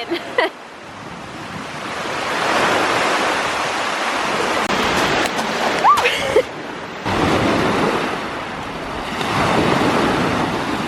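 Small lake waves washing onto the beach, swelling and fading twice. A brief whistle-like squeak rises and falls about six seconds in.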